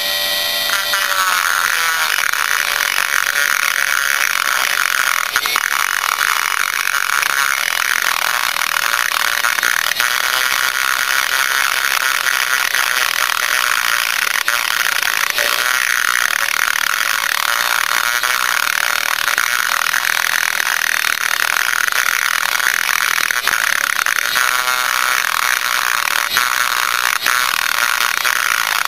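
High-speed rotary tool with a double-cut carbide burr grinding out a transfer port in a Yamaha Blaster two-stroke cylinder: a steady motor whine with the bit's grinding against the metal, its pitch wavering slightly as the bit is worked.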